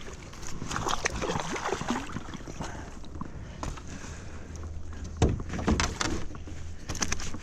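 Water sloshing and splashing around a kayak, with several sharp knocks and bumps against the hull, the loudest about five seconds in, as a just-caught bass is handled aboard.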